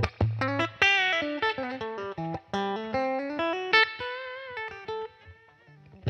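Solo Fender Telecaster electric guitar playing a blues lead line: single sustained notes with string bends and vibrato, the phrase trailing off quietly near the end.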